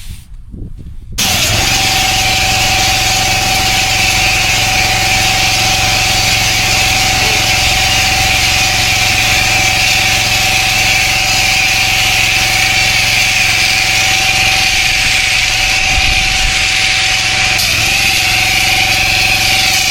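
Pressure washer running steadily, a constant machine hum under the hiss of the water jet, starting abruptly about a second in.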